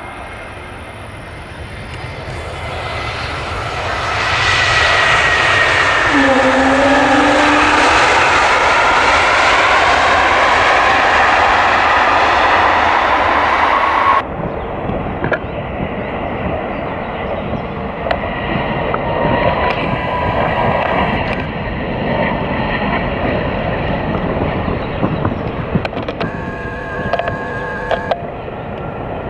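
Twin-engine narrowbody jet airliner passing close overhead or by, swelling to a loud rush with engine tones sliding down in pitch as it goes past. It cuts off suddenly about fourteen seconds in to a quieter, steady jet engine noise from another recording.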